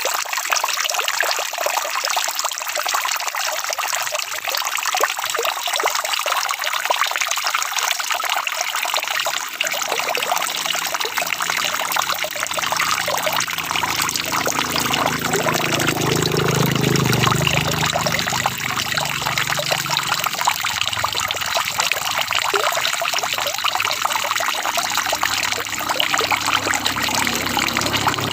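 Steady rain falling. A low hum comes in about ten seconds in and is loudest a little past the middle.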